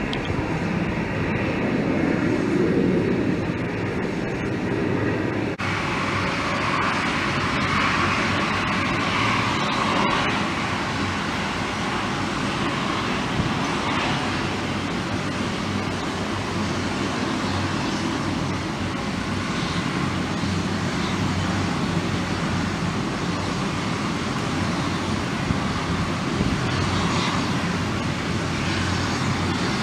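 Jet aircraft engines running as a steady, loud rush of noise, with an abrupt change in the sound about five and a half seconds in.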